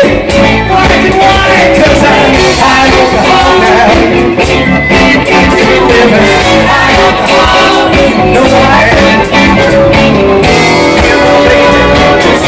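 A live blues band playing, with a singer and guitar over a steady full-band backing.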